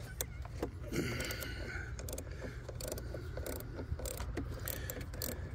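Socket ratchet clicking in short, irregular runs as it loosens the nut on a car battery's positive terminal clamp.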